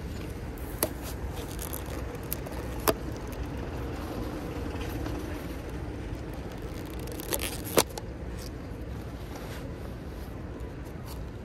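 A clear plastic protective tube around a bottle of Sriracha being handled, giving a few sharp plastic clicks and scrapes, the loudest about eight seconds in, over a steady low street hum.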